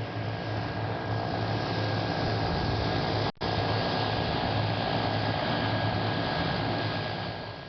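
Steady drone of a single-engine Cessna heard from inside the cabin, a constant low hum under a wide rushing noise. It cuts out for an instant about three seconds in and fades away at the very end.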